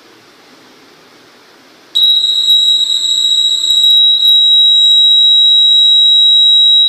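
Piezo buzzer on the model bridge's control box sounding one steady high-pitched tone. It starts about two seconds in and holds on while the rotating bridge swings into road position.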